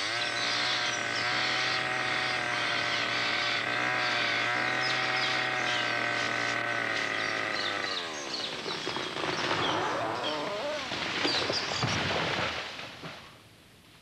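Two-stroke chainsaw running at full revs, cutting into the trunk of a large rainforest tree. About eight seconds in the engine note drops, and a few seconds of cracking and crashing follow as the tree falls, ending in a heavy thud.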